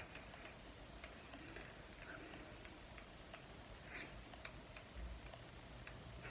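Faint, irregular clicks and taps over quiet room tone.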